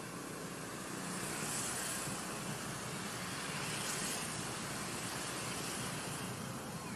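Steady outdoor background noise, a hiss like distant traffic or wind, swelling a little about one and a half and four seconds in.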